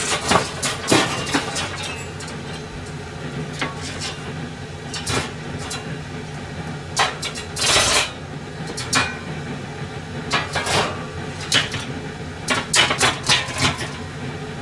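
Cookware and utensils clattering as they are handled and set down: a string of separate clinks and knocks, the loudest about eight seconds in, over a steady low hum.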